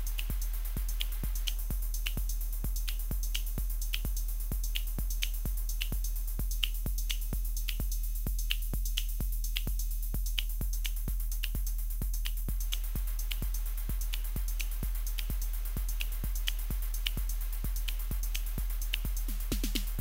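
Roland TR-8 drum machine playing a steady electronic beat at about 120 BPM, fed through a small guitar effects pedal: sharp ticks about four a second with brighter hi-hat hits, over a constant low hum.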